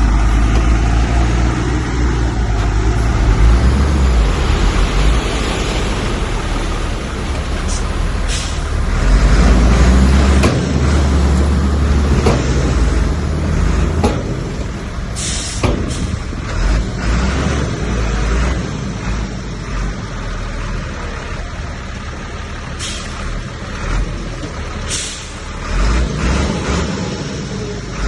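Heavy diesel earthmoving machinery running under load with a deep, uneven rumble, with scattered knocks and clanks and a few short air hisses.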